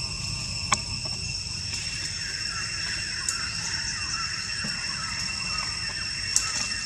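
Steady high-pitched drone of insects, a few held tones at once, over a low rumble, with a couple of sharp clicks, one about a second in and one near the end.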